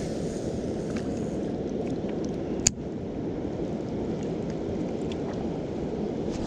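Steady rushing of water pouring over a river spillway, with one sharp click about two and a half seconds in.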